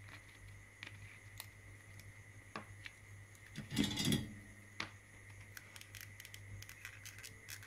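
Small clicks and taps of a tiny circuit board and metal header pins being handled on a cutting mat, with a louder brief clatter about four seconds in as they are set down. A steady low hum and a faint steady high tone run underneath.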